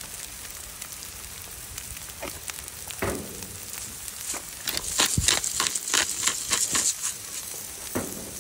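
Eggs frying on a hot flat-top griddle: a steady sizzle with scattered crackles, thickening into a run of sharp crackles and pops about halfway through.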